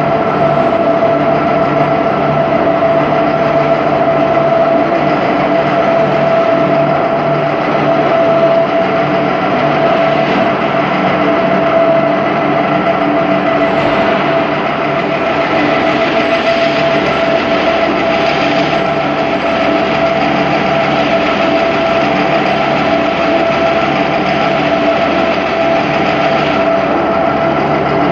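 Slitting line machinery running steadily: an even mechanical hum with a constant high whine from its motors and drives, unchanging throughout.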